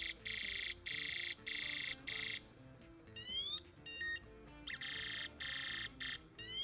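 Electronic horn of a bicycle LED headlight sounding: a run of loud, evenly pulsed electronic beeps, a short rising siren-like sweep about three seconds in, then more beeps as the horn cycles through its tones. Quiet background music plays underneath.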